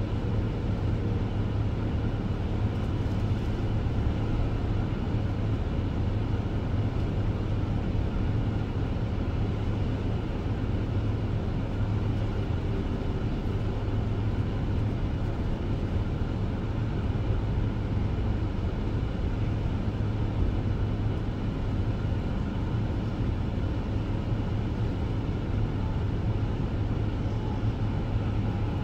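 Steady, low engine hum of an idling vehicle.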